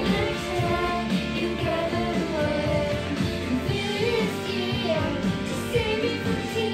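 Recorded music with a singing voice playing at a steady level.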